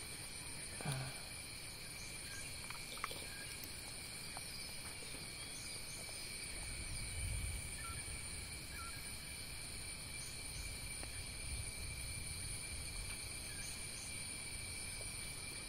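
Steady high-pitched insect chorus, several even tones held throughout, with a few faint clicks and a brief low rumble about seven seconds in.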